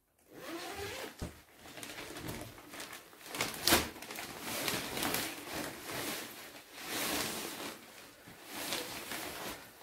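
Nylon pop-up pet tent rustling as it is pulled from its carry bag and sprung open, with a sharp snap about three and a half seconds in, then continued rustling of the fabric as it is handled.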